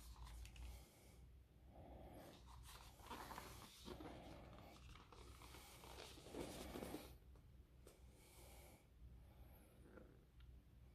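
Faint handling noise of a cardboard Blu-ray digipak being opened and unfolded by hand: several soft rustles and scrapes, the strongest about six seconds in.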